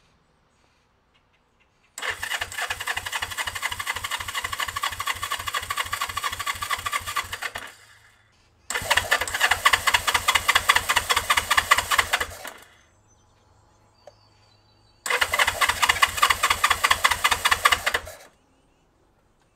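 1971 Honda CB450's parallel-twin engine being cranked on the electric starter in three tries, about six, four and three seconds long, with a steady rhythmic chugging. The engine does not catch: a cold start after the bike has sat unrun for years.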